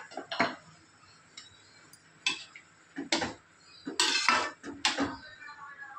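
Metal ladle clinking and scraping against a metal kadai while chickpea curry is stirred. About half a dozen separate clinks, with a longer scrape about four seconds in.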